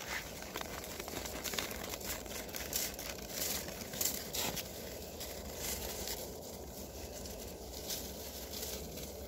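Leafy birch twigs of a besom rustling and crackling as a pony and a donkey pull at them and chew, with irregular snaps and crunches.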